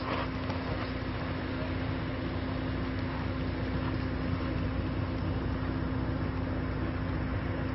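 Steady outdoor background noise with a constant low hum throughout.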